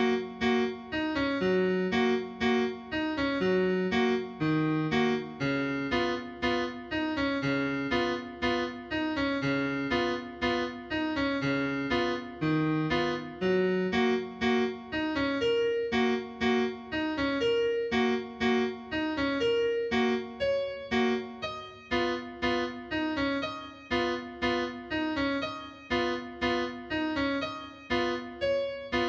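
Background music: a gentle piano-like keyboard melody of evenly paced notes over soft chords.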